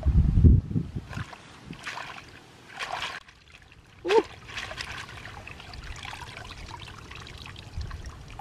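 Water trickling and splashing in a muddy rice-field channel as a bamboo fish trap is handled and lifted out, with rice leaves rustling. Dull thumps in the first second, and a brief squeak about four seconds in.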